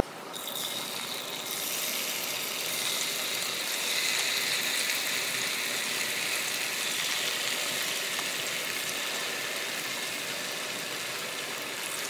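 Marinated chicken pieces sizzling in hot oil in a kadai: a steady hiss that swells over the first couple of seconds and then holds.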